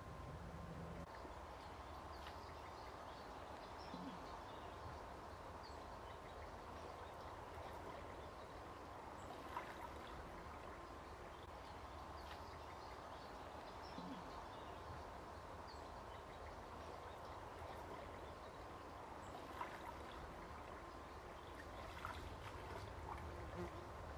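Faint, steady water noise of a stream, with a thin steady high tone running under it and a few soft clicks.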